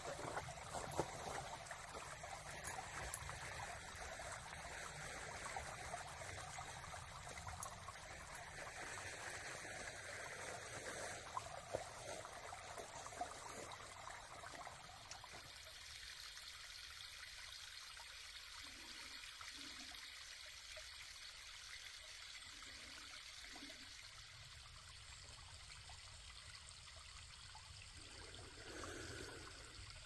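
Small woodland waterfall trickling down a rock ledge: a faint, steady rush of running water, with less body to it after about halfway. A few light clicks sound in the first half.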